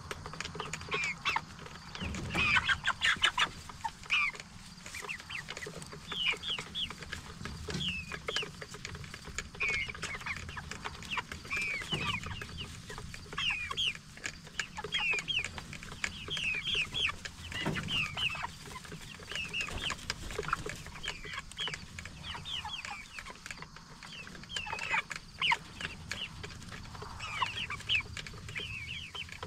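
A flock of Cornish Cross broiler chickens, about six weeks old, peeping and clucking continually in short repeated calls, with an occasional low bump.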